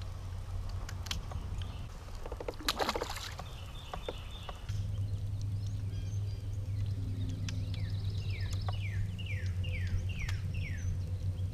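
Kayak on the water with a steady low hum underneath, which gets stronger after a few seconds. A short rattle of quick clicks comes about two and a half seconds in. Near the end a bird calls a run of quick down-slurred whistles.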